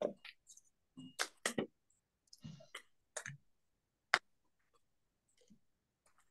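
Paintbrush working paint on a canvas and palette: scattered light clicks and taps, with a short dry scrubbing sound about two and a half seconds in and a sharper tap about four seconds in.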